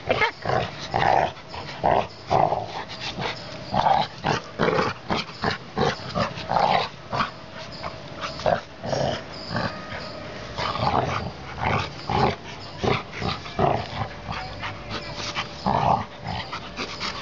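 Two yellow Labrador retrievers play-fighting, growling in short, irregular bursts, the mock-aggressive growls of rough play rather than a real fight.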